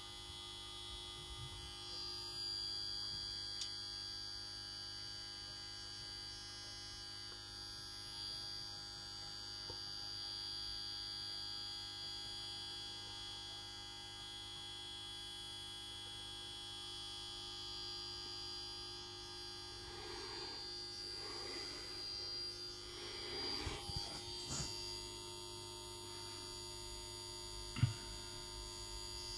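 Steady electrical hum with a thin, high-pitched whine above it, from running solar charging electronics. Faint handling rustles come in near the end, then a brief knock.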